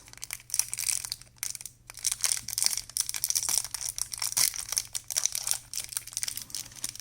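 Packaging of a small vitamin-mint pack crinkling and tearing as it is opened by hand: a continuous run of crackles.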